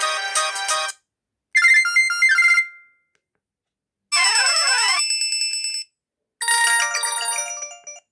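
Samsung SGH-Z240 mobile phone playing a run of short ringtone snippets with brief silent gaps between them. One ends about a second in, then three more follow, each lasting one to two seconds. The middle one is a pattern of rising and falling glides.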